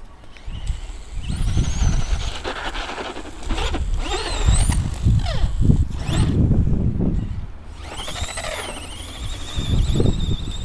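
Brushless electric motor and geared drivetrain of a radio-controlled Tamiya Grasshopper buggy whining as it is throttled on and off. The high whine rises and falls in pitch in several runs, over a low rumble.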